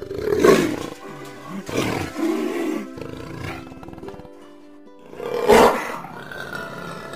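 Jaguar roaring three times, the loudest calls about half a second in and near five and a half seconds, with background music underneath.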